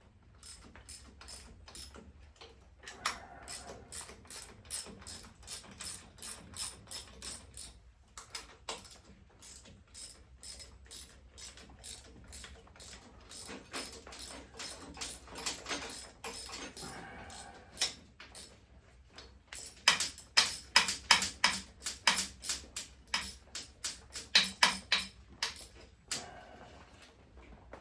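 Hand ratchet wrench clicking in quick runs with short pauses, as bolts on a V-twin engine's top end are loosened in a diagonal order.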